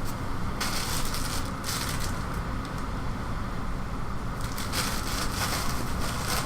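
Packaging rustling and crinkling in irregular spells as items are handled in a subscription box, over a steady low hum.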